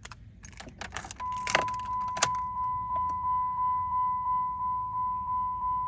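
Keys jangling and clicking at the ignition, then, about a second in, the Jeep Compass's warning chime starts: a high ding repeating about three times a second.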